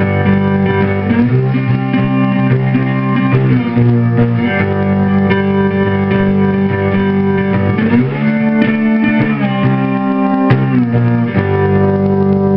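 Three-string electric cigar box guitar with a humbucker pickup, played slide with a glass Coricidin pill bottle through a small Fender amp with a touch of reverb. Sustained notes ring over a steady low drone, with sliding glides between pitches a little past the middle and again near the end.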